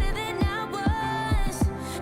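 Background music: a song with a singing voice over a steady drum beat of about two beats a second.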